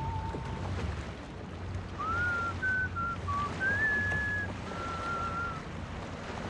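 A person whistling a tune, a handful of held and short notes with a gap of about a second after the first one, over a steady low rumble.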